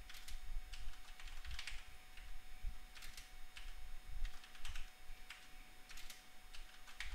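Computer keyboard typing: irregular keystrokes, several clicks a second with short pauses between bursts.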